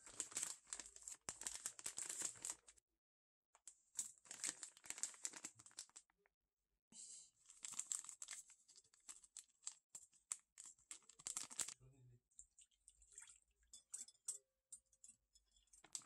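Plastic and foil hotteok-mix pouches crinkling as they are handled and torn open, in three bursts of crackling, then a few lighter scattered rustles and ticks near the end.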